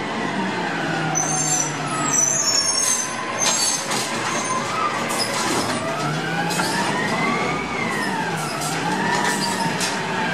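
Crane Carrier cab-forward automated side-loader garbage truck's diesel engine running as the truck pulls up and its arm grabs and lifts a cart. The engine speeds up and back down with a rising, then falling whine about six to nine seconds in, while the hydraulic arm works; high squeals and clicks come about one to three seconds in.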